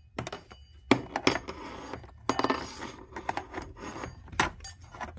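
Plastic door sill trim being pried up with a flathead screwdriver and the rubber door seal pulled back. Irregular sharp plastic clicks and snaps as the trim clips give, with scraping and rubbing between.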